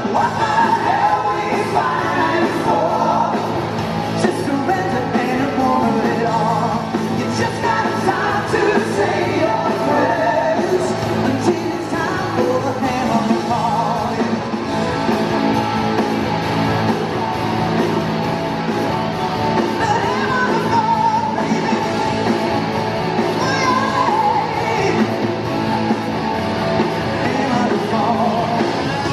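Live rock band in an arena, heard from the audience: a male lead singer over drums and electric guitar.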